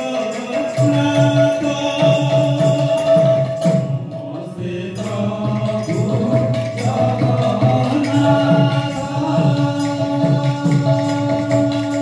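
Devotional kirtan music from a live group: a long held melody note over a steady rhythm of drum strokes and sharp jingling percussion beats. The percussion drops out briefly about four seconds in, then picks up again.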